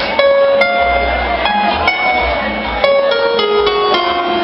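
A tropical band playing an instrumental passage: a melody of held, stepping notes over pulsing bass, with light, sharp percussion ticks.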